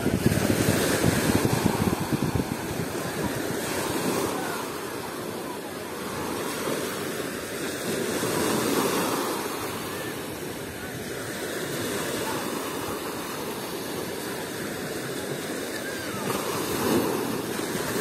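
Small Sea of Azov waves washing onto a sandy beach, the surf swelling and easing every few seconds, with wind buffeting the microphone.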